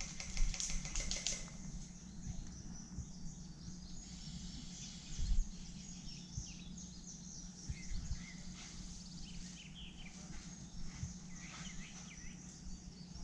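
Woodland ambience with birds chirping, many short high calls scattered throughout. A rustle near the start and a few low thumps, the loudest about five seconds in.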